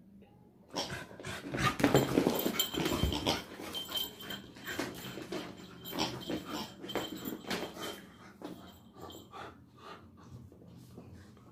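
Labrador puppy growling and panting in short, irregular breathy bursts as it tugs at and chews its toys, loudest a couple of seconds in and then thinning out.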